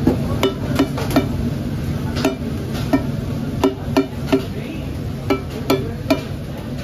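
Steel cleaver chopping chicken on a large steel tawa: about a dozen sharp, ringing metallic clanks at an uneven pace, roughly two a second, over the steady sizzle of the bubbling gravy.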